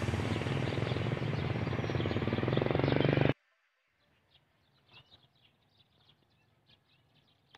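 A loud, dense, steady sound cuts off abruptly about three seconds in. After that there is only a faint outdoor background with scattered small bird chirps.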